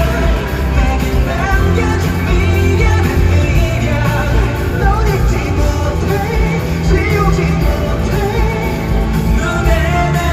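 Pop-rock song with a male lead vocal singing over a full band.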